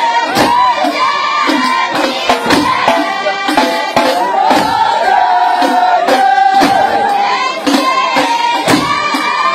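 Ahwash: a large chorus of men singing a wavering, held melody together, with frame drums struck in a driving rhythm underneath.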